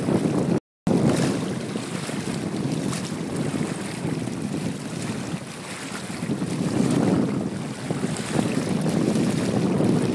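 Wind buffeting the microphone, a rough rumbling noise that swells and eases. The sound cuts out completely for a fraction of a second a little under a second in.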